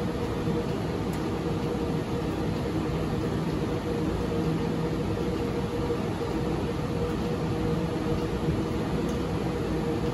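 Steady whir of equipment cooling fans and air handling in a telephone switch room, with a few steady humming tones under the noise.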